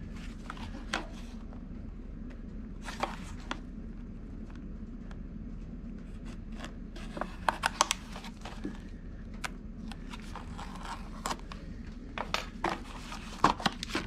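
Clear plastic package of a pump-head rebuild kit being handled and opened: scattered crinkles and sharp plastic clicks, thickest about halfway through and again near the end, over a steady low hum.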